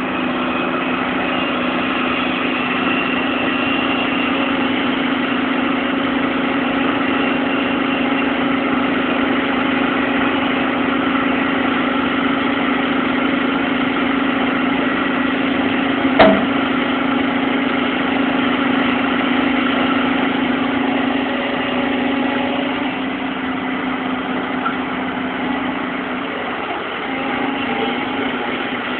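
Bulldozer's diesel engine running steadily at low revs, with one sharp clank about halfway through.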